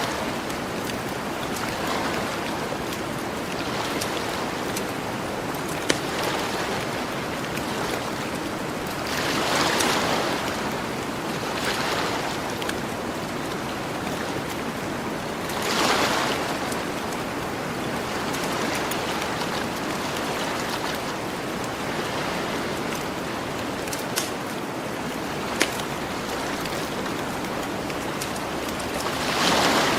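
Ocean waves washing onto a beach over a steady hiss of surf, swelling three times as waves break and run up. A campfire crackles with three sharp pops.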